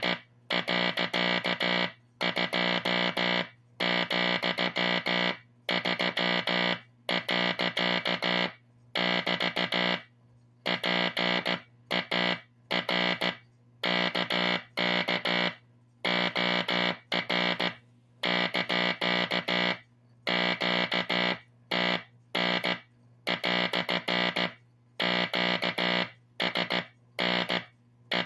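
Morse code sounded by a vintage Teleplex tape-drum code machine through its vacuum-tube code practice oscillator and speaker: a buzzy tone keyed on and off in dots and dashes, spelling out a coded message. A low steady hum runs underneath, also through the gaps between tones.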